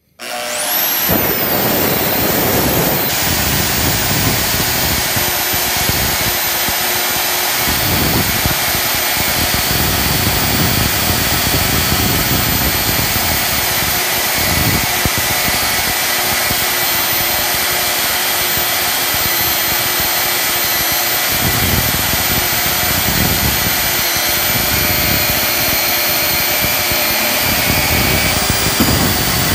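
Milwaukee portable bandsaw (portaband) starting at once and running loudly and steadily as its blade cuts through a clamped helix of 304 stainless steel bar, with a steady high whine over the cutting noise.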